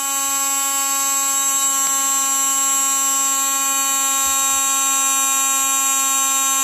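Small 12-volt DC water pump motor running, giving a steady electric buzzing hum.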